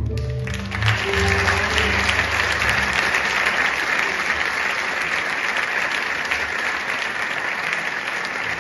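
Audience applause breaks out as the song ends, a steady dense clapping, with the band's last held notes dying away under it in the first two seconds or so.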